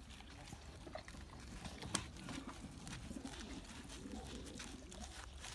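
American Staffordshire Terrier eating raw minced beef from a tray: faint wet clicks and smacks of licking and chewing. A low cooing sound runs underneath from about two to four and a half seconds in.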